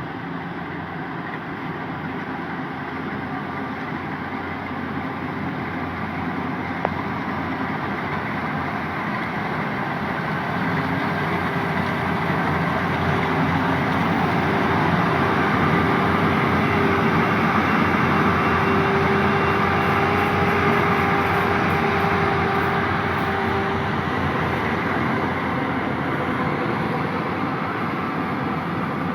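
Yanmar YH850 combine harvester's diesel engine and machinery running steadily. It grows louder toward the middle, where a steady whine rises above the engine noise, and eases off somewhat near the end.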